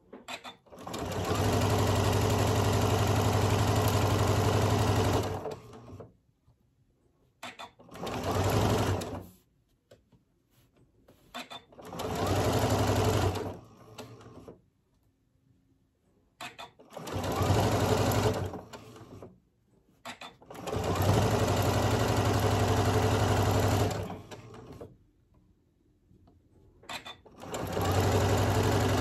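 Janome M7 sewing machine stitching a pieced quilt seam in stop-start runs: six bursts of steady stitching, the longest about four and a half seconds, the shortest under two, with short pauses between.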